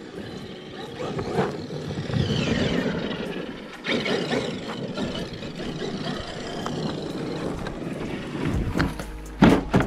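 Traxxas X-Maxx electric RC monster truck driving fast on dirt: its brushless motor whines, falling and rising in pitch with speed, over the noise of tires churning loose dirt. Near the end there is a sudden louder crunch as it plows into dry brush.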